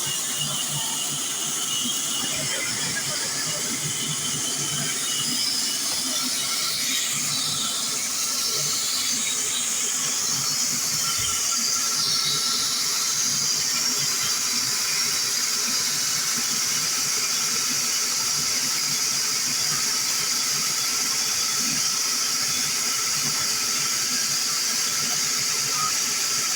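Heavy wood-cutting machine running steadily with a high-pitched squealing hiss. The pitch of the noise shifts briefly about seven to twelve seconds in.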